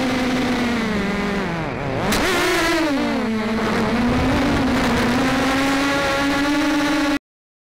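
Brushless motors and propellers of a Scarab Knife mini FPV quadcopter, giving a buzzing whine whose pitch changes with throttle. The pitch sags about a second in and drops low near two seconds. It then jumps back up with a sharp click and wavers. The sound cuts off suddenly near the end.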